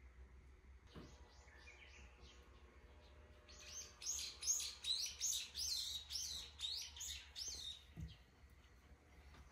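Small songbird chirping: a quick run of high notes about a second in, then a louder series of repeated chirps, a few a second, for about four seconds.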